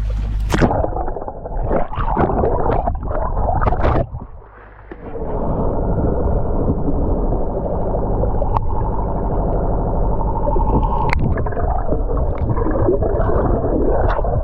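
A loud, steady low drone like a running motor, with several sharp knocks in the first few seconds and a brief drop about four and a half seconds in.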